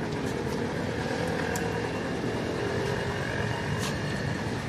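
Steady drone of motor-vehicle noise, with a few faint ticks.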